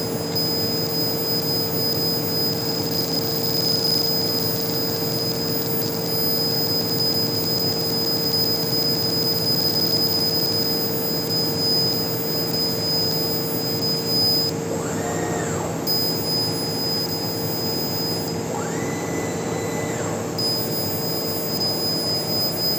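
Laser CNC engraving machine running: a steady hum with held tones. Two brief whines rise, hold and fall, about fifteen and nineteen seconds in.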